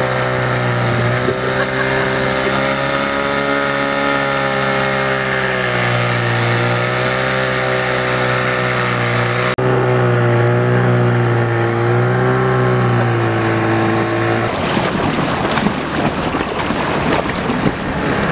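Boat motor running steadily, its pitch wavering slightly. About fourteen seconds in, the engine tone gives way to a rough rushing noise.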